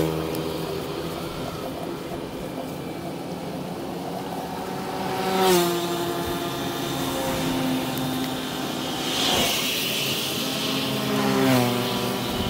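Motor scooters and other traffic passing one after another on a wet road, each engine swelling and falling in pitch as it goes by, with a hiss of tyres on wet asphalt about three-quarters of the way through.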